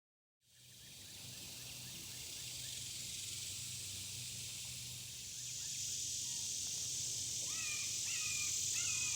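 A steady high hiss, then from about three-quarters of the way in a red-shouldered hawk calling: a quick series of short, downward-slurred cries, about two a second.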